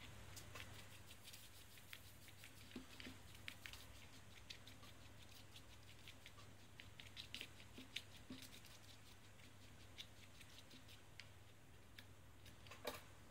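Faint scraping and irregular light ticking of a thin metal stirrer against a small plastic dish as liquid silicone rubber is mixed in it, with one sharper click near the end, over a steady low room hum.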